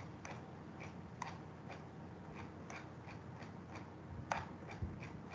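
Faint, uneven clicking of a computer mouse scroll wheel, about three or four ticks a second, with a louder click about four seconds in.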